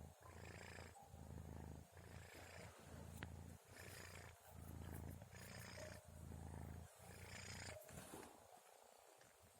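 A sleeping orange kitten purring or snoring softly, a low rumble that breaks and restarts with each breath, roughly once a second. The rumble fades away near the end.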